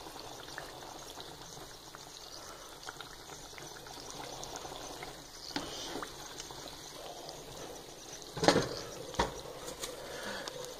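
Stovetop cooking: a pot of black-eyed peas bubbling and turkey tenders frying in shallow oil, a steady bubbling sizzle with fine crackles. A sharp knock about eight and a half seconds in is the loudest sound, with a smaller one just after.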